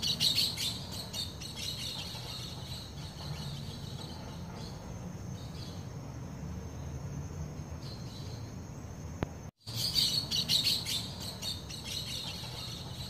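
Birds chirping and calling over a steady high insect drone and a low background rumble. The birdsong is busiest at the start and again after a brief break in the sound about nine and a half seconds in.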